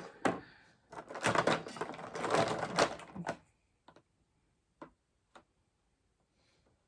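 Hard plastic alcohol markers clattering and clicking against each other as someone rummages through a stash of them, a dense run of clatter for about two seconds, then three separate clicks.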